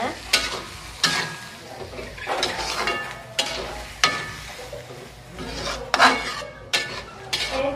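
A spatula scraping and knocking against a metal wok while squid and green chilies are stir-fried, about eight uneven strokes with a short ring after some of them, over a light sizzle of the squid cooking in its own juices.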